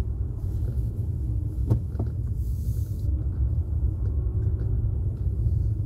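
Steady low rumble of a car's engine and tyres heard from inside the cabin while driving slowly, with two light clicks a little under two seconds in.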